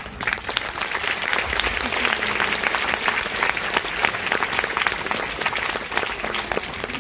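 Audience applauding: many hands clapping together, starting at once, strongest after a second or two and easing off slightly toward the end.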